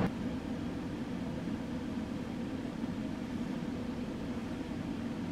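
Steady low hum and hiss of background noise with faint constant tones and no distinct events.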